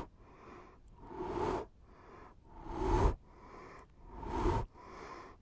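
Heavy, rasping breathing in a slow rhythm: a louder breath about every one and a half seconds, with quieter drawn breaths between.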